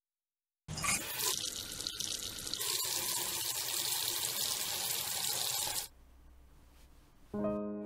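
Water running from a tap and splashing as a face is washed at a sink, starting about a second in and cutting off suddenly about six seconds in.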